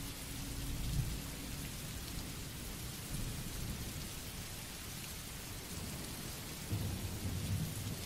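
Steady rain with low rumbles of thunder: a swell about a second in and a longer roll near the end.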